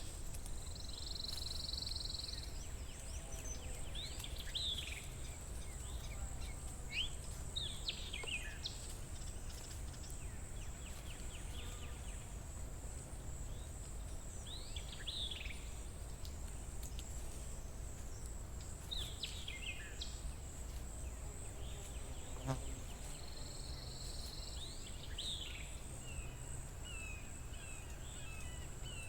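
Outdoor forest ambience: songbirds give short calls that sweep down in pitch every few seconds, with two brief buzzy trills, over a steady high-pitched drone and a low rumble. There is a single sharp click a little after the middle.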